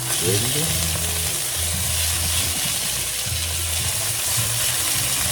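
Chicken pieces frying in hot oil in a pan, a steady sizzle throughout.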